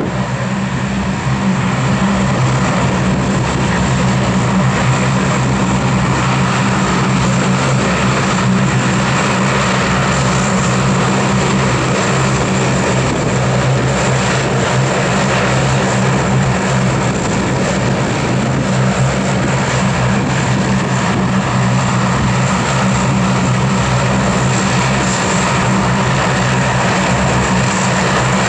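Lockheed C-130H Hercules' four Allison T56 turboprops running at taxi power: a steady, loud, deep propeller drone with a high turbine whine above it.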